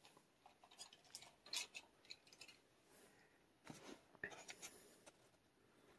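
Faint handling noise: soft clicks and crinkles of a carded die-cast toy car's plastic blister packaging being turned in the hand, in two short clusters about a second in and about four seconds in.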